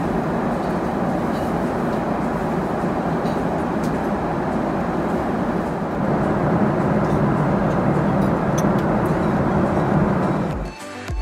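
Steady cabin noise of a Boeing 777-300ER airliner in flight: a dense rushing of airflow and engine noise, stepping slightly louder about halfway through.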